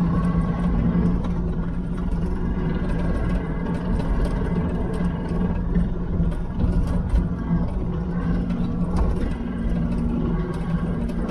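Diesel engine of heavy equipment running steadily: a constant low drone with a few light rattles and clicks over it.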